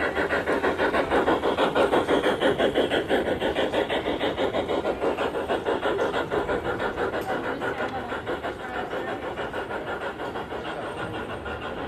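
Model steam locomotive on a garden railway chuffing in a steady beat of about four to five puffs a second, fading slowly as it moves away.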